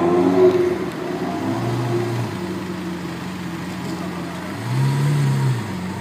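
Lamborghini Aventador LP700-4's 6.5-litre V12 idling through its standard exhaust, with a brief light rise in engine speed about a second and a half in and again near the end.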